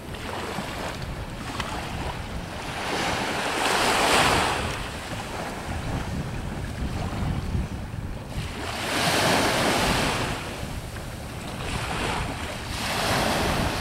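Small waves washing up on a sandy beach, three surges about four to five seconds apart, over wind rumbling on the microphone.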